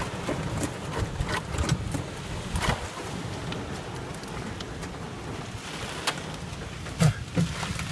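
Steady heavy rain in a storm's high winds, with a low rumble and scattered sharp knocks of rain or debris striking.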